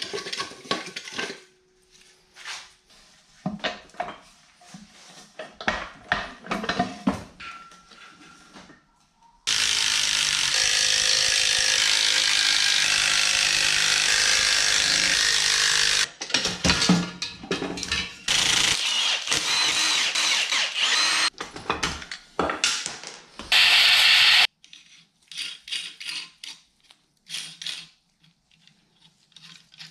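Cordless power tool running on the clutch and flywheel bolts in long steady runs, the first about six seconds long a third of the way in, then two shorter ones. Between runs come clinks and knocks of tools and metal parts.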